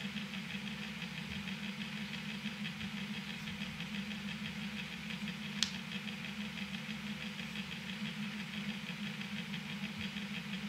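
Steady mechanical running noise with a fast, even pulse, and a single sharp click about five and a half seconds in.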